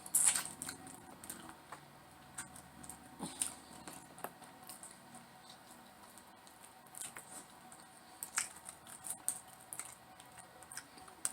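Close-mic eating sounds: chewing with scattered short, sharp wet clicks and crackles, the loudest just at the start.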